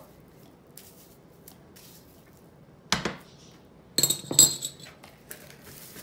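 A single knock about three seconds in, then a metal spoon clinking several times against a small ceramic bowl, each clink ringing briefly.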